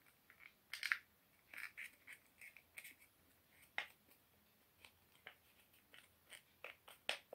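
Faint, irregular rustling and crinkling of a folded sheet of paper being handled: short scrapes and crackles as the paper boat is opened out and its corners pinched and pressed by hand.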